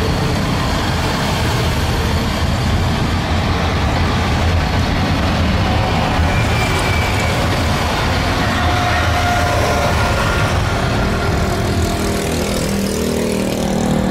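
Boeing 777-300ER's twin turbofan engines at takeoff thrust during the takeoff roll and lift-off, a loud, steady rush of jet noise.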